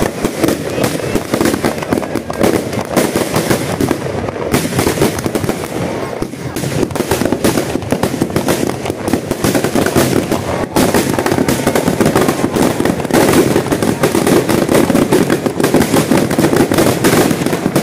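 Firecrackers packed into a burning Ravana effigy going off in a dense, continuous crackle of bangs, a step louder from about eleven seconds in.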